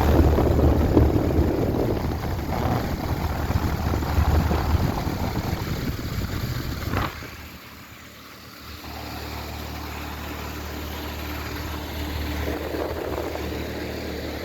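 Carrier heat pump outdoor unit running in heat mode: a steady low compressor hum under the rush of the condenser fan. A knock about seven seconds in, then the sound drops for a second or two before the steady hum carries on, a little quieter.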